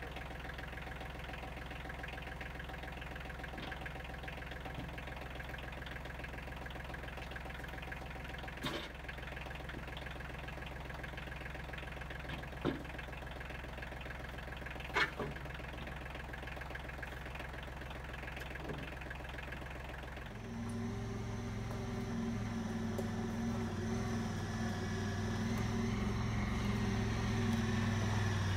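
Red farm tractor's engine idling steadily with its front loader raised, with a few sharp knocks as wooden risers are set into the loader bucket. About twenty seconds in, a Honda side-by-side UTV's engine takes over, louder, its pitch rising as it drives.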